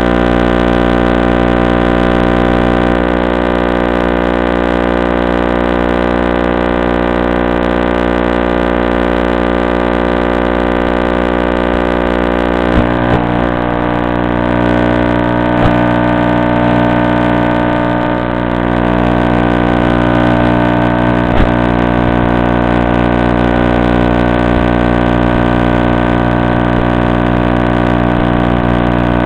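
Steady, loud electrical buzz made of many evenly spaced tones that do not change, typical of the audio channel of an analog FPV video receiver recording with no microphone sound on it. A few faint clicks come through around the middle.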